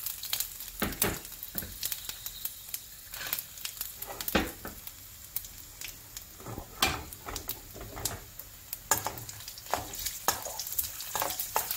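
Cumin seeds, black pepper, ginger and cashews frying in hot ghee in a steel kadai, sizzling and crackling steadily. A metal spoon clinks and scrapes against the pan as it stirs.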